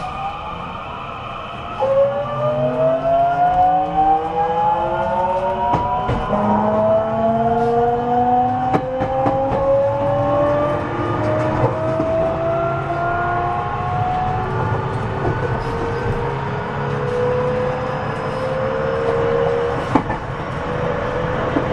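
JR West 207 series electric train accelerating, heard from inside the motor car: the inverter and traction motor whine rises in pitch in several overlapping stages, over a low running hum, with a few sharp clicks. The level jumps about two seconds in.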